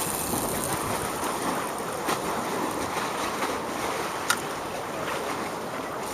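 Sea waves and strong wind, with wind buffeting the microphone, and a few sharp clicks, the loudest about four seconds in.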